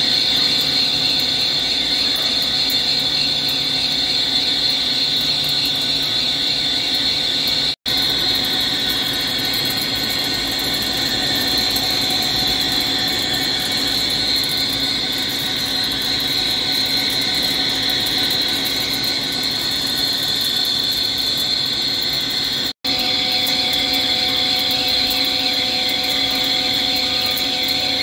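Hankook CNC lathe turning a stainless steel roll: a steady, loud mechanical whine from the spindle and the cutting tool. The sound drops out for an instant twice.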